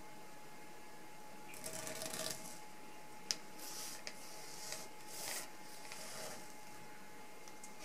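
A freshly sharpened 100-yen-shop kitchen knife slicing down through a muffin and its paper baking cup, which crinkles and rustles in short strokes as the blade works through. There is a light tap a little over three seconds in, and a faint steady tone underneath throughout.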